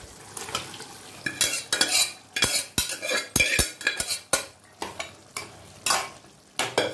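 Steel spoon knocking and scraping against a small aluminium pot as cooked mutton is scooped out into a kadai, a quick run of clinks about a second and a half in, then a ladle stirring the meat in the kadai with a few more knocks near the end.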